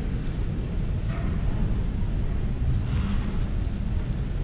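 Steady low rumble and murmur of a large exhibition hall, with faint distant voices about a second in and again near three seconds, and a few small clicks.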